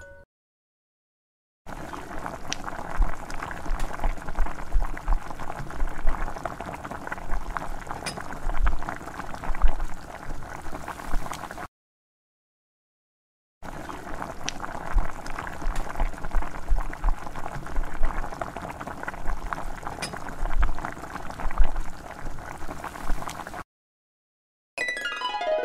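A small pan of masala gravy bubbling as it simmers, with occasional soft thumps. The sound comes in two stretches of about ten seconds each, with a sudden cut to silence between them.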